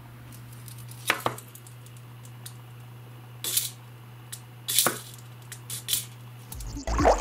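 A handful of short, sharp clicks and knocks as hard plastic wobbler lures and their treble hooks are handled and set down on a wooden tabletop, over a steady low hum. Music starts near the end.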